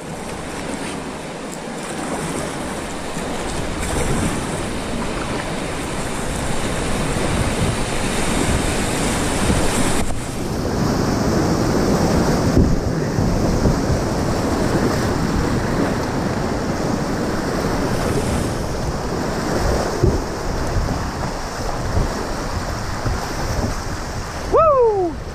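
Whitewater rushing and splashing around a kayak as it runs down a creek rapid, heard close to the water.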